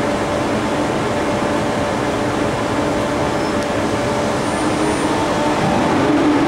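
ETR 470 Pendolino electric train standing at the platform, its onboard equipment and cooling blowers running with a steady hum and whir that grows a little louder near the end, just before it pulls away.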